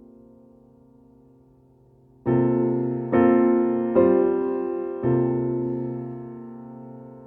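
Background piano music: a soft held chord, then four chords struck about a second apart, each ringing and dying away.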